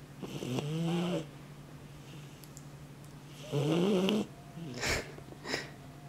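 Doberman pinscher puppy snoring in its sleep. There are two drawn-out snores with a slight rise in pitch, about a second in and again past three seconds, then two short sharp snorts near the end.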